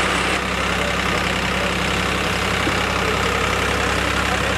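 New Holland 3630 tractor's three-cylinder diesel engine idling steadily.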